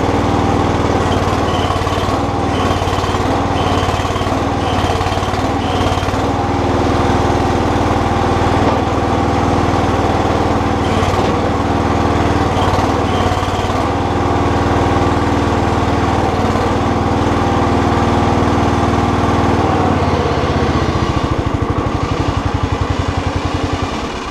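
Terramite compact backhoe's engine running steadily while its hydraulics are being worked, its note changing a little about twenty seconds in.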